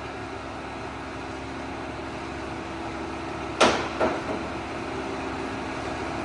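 Monarch 24-inch by 80-inch engine lathe running steadily with the chuck at 222 RPM and the threading feed engaged: an even mechanical hum with a few faint steady tones. About three and a half seconds in comes a sharp metallic clank, then a lighter knock, as the feed is shifted from forward to reverse threading.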